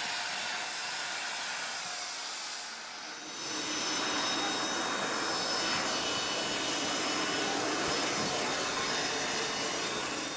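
Jet aircraft engines running: a steady rushing noise with a thin high whine, easing briefly about three seconds in and then building up again.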